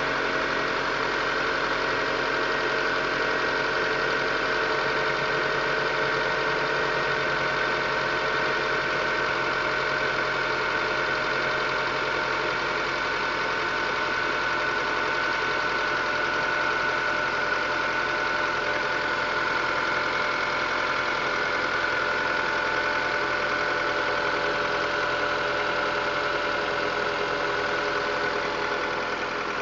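Honda CR-V's K20A4 2.0-litre four-cylinder petrol engine running steadily at idle, with a high steady whine over the engine sound and a faint ticking that the owner is unsure is normal.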